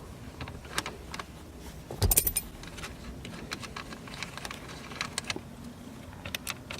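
Light metallic clicks and clinks of hand tools and small metal parts being handled, with a louder clatter about two seconds in.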